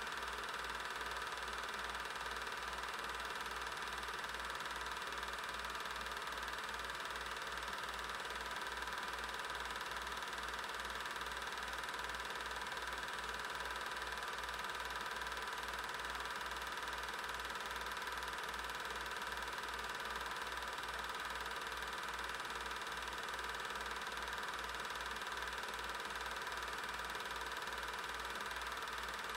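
An 8mm film projector running steadily, its motor and film mechanism giving a constant mechanical whirr with a regular low pulse.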